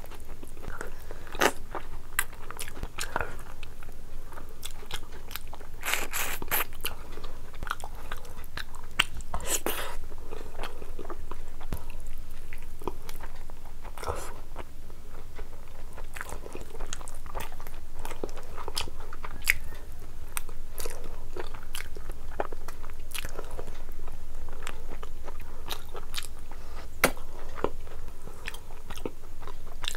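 A person eating curried meat and rice by hand: chewing, lip-smacking and biting and sucking meat off a bone, heard as many irregular wet clicks and smacks.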